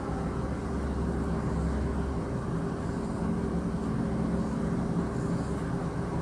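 Steady low mechanical hum with a few faint steady tones in it, like a running fan or distant engine, unchanging throughout.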